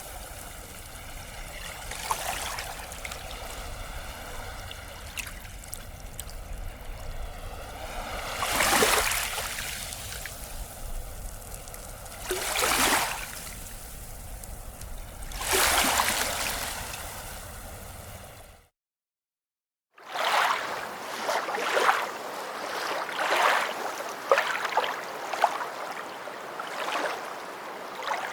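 Sea waves washing ashore, with four larger waves surging in every few seconds. After a short break in the audio, a second, choppier stretch of waves splashing.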